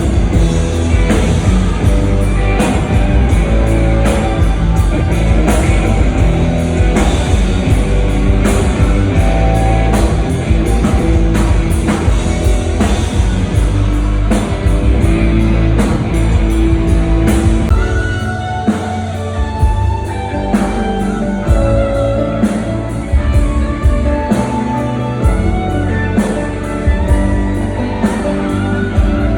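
Rock band playing loudly through a PA during a sound check: drum kit, bass and electric guitar. The bass and drums thin out about two-thirds of the way through, then fill back in near the end.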